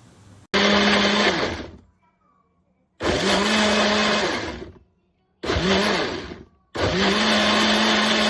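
Angashion 400 W personal blender's motor run in pulses: four bursts, each spinning up quickly and winding down when released, the last held longer.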